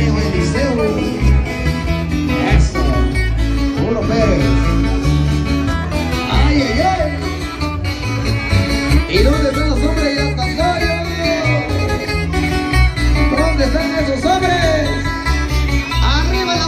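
Live band playing upbeat Latin music: a stepping bass line under guitar, with a gliding lead melody above.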